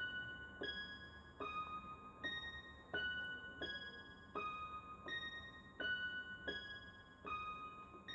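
Background music: a keyboard playing a simple melody of single piano-like notes, about one every 0.7 seconds, each ringing and fading.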